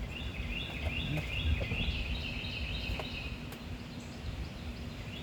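A bird singing a quick run of short, high chirping notes, several a second, that stops about three seconds in, over low rumbling noise on the microphone and a few faint clicks.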